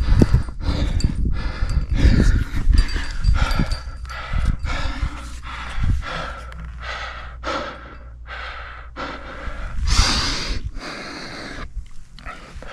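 A rock climber breathing hard and fast, about two breaths a second, with a few low knocks of gear or rock contact and one louder rush of breath or wind about ten seconds in.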